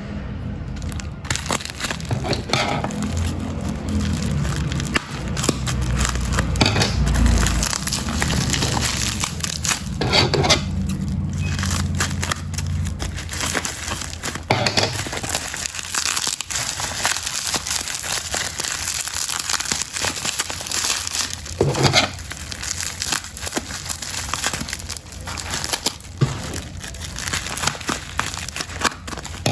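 Packaging being crumpled and crinkled by hand in a long stretch of crackling, with a low hum underneath for roughly the first half.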